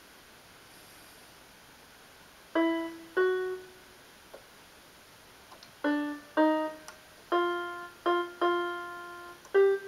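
Piano introduction to a worship song: after a short quiet pause, a slow melody of single notes starts a couple of seconds in, each note struck and left to fade.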